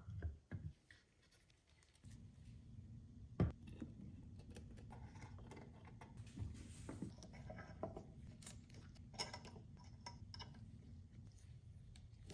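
Scattered light clicks and taps of small objects being handled, over a low steady hum that starts about two seconds in.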